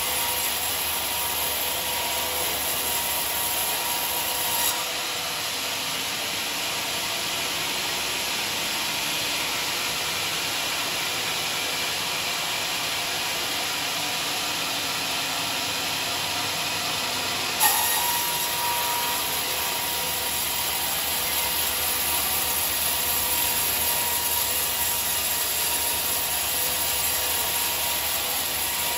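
Bandsaw sawmill blade, an American-made blade on test, cutting a beam of rotting johar wood with a steady sawing noise. About five seconds in the sound eases as the blade comes out of the cut. A little past halfway a sharp knock is heard and the full sawing noise starts again as the next cut begins.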